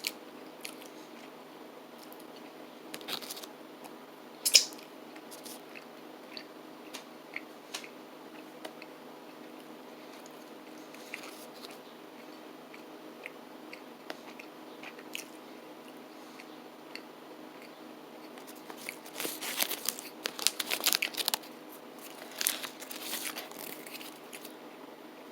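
Quiet chewing and mouth noises of a man eating soft baked mini cookies, with scattered small clicks. There is a sharper click about four and a half seconds in, and a run of louder rustling noises near the end.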